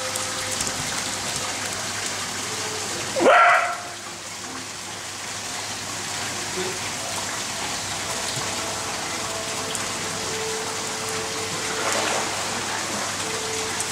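Steady hiss of water spraying from a hose into a pool. About three seconds in comes one short, loud yelp from an eager corgi.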